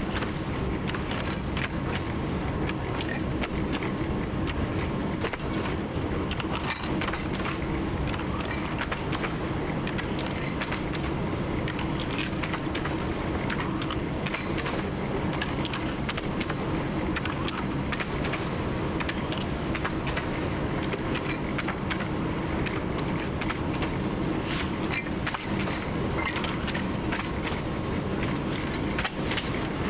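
TU7 narrow-gauge diesel locomotive running steadily under way, its V12 diesel engine giving a constant drone, with frequent clicks and knocks from the wheels on the track.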